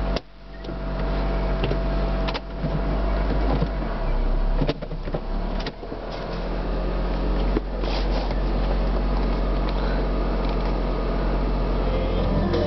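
Steady in-cabin hum of a 2003 Mitsubishi Galant idling, its four-cylinder engine running with the climate fan blowing, broken by a few sharp clicks.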